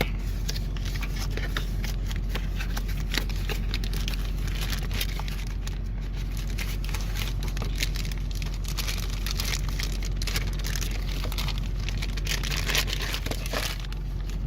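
Packaging crinkling and tearing as a new switch is unwrapped, many irregular crackles, with a steady low hum underneath.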